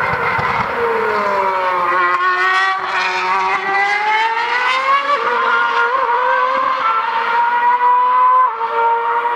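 2013 Formula One car's 2.4-litre V8 engine, a Mercedes-powered Force India, going through a corner at high revs. Its pitch falls as the car slows in the first second or so, climbs smoothly for a few seconds as it accelerates out, then holds roughly steady near the end.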